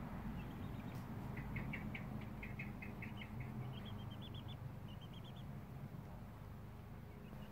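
Month-old Silkie chicks peeping: a run of short, high peeps, about four a second, going a little higher in pitch about halfway through. A steady low rumble runs underneath.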